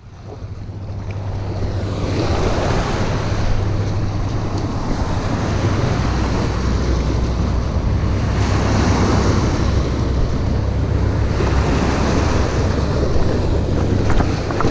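Small river waves washing and splashing against the riprap rocks at the water's edge, the noise swelling and easing as each wave comes in, over a steady low rumble.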